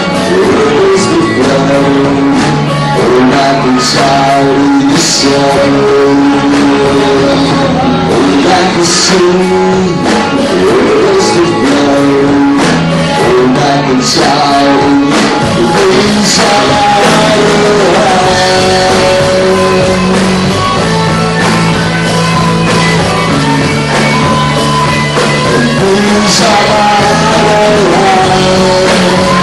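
Live rock band playing loud and amplified: two electric guitars, electric bass and a drum kit with cymbal crashes.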